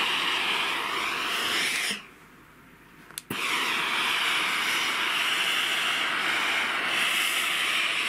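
Bosch Sensixx AdvancedSteam iron releasing steam onto a knitted garment with a steady hiss. The hiss cuts off about two seconds in and starts again with a click just over a second later.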